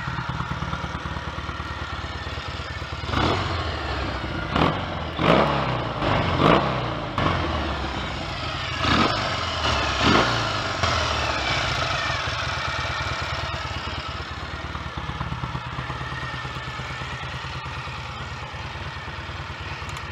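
1970 Triumph T100C's 500 cc parallel-twin engine idling, blipped several times between about three and ten seconds in, then settling back to an even idle. It is running well on newly fitted ignition points, which were replaced to cure a misfire.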